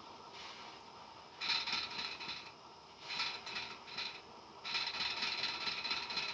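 Roundhouse 'George' live-steam locomotive running slowly on test blocks, its valve gear and wheels clattering and its exhaust puffing. The sound comes in three uneven stretches, starting about a second and a half in.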